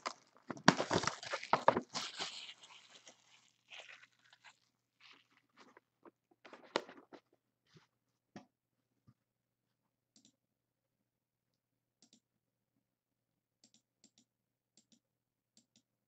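Plastic shrink-wrap being torn and crinkled off a sealed trading-card box. It is loudest for the first couple of seconds, thins to scattered crackles over the next few, then gives way to a few faint clicks.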